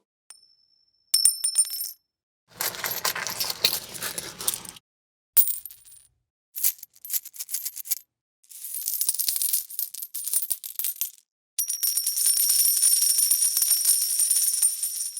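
A series of separate coin sounds split by short silences: single coins landing with a clink and a high ringing tone, then longer stretches of many coins jingling together. The last of these runs about four seconds.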